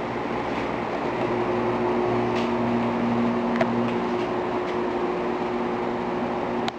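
Steady machine hum with two steady tones over a noisy bed, with a few faint clicks.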